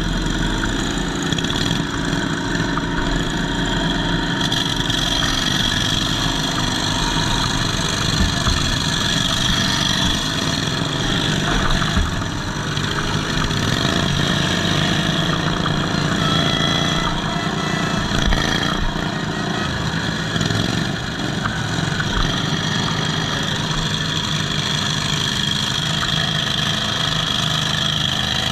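Riding-mower derby car's V-twin engine running through twin open exhaust stacks, its level shifting a little, with a few short knocks.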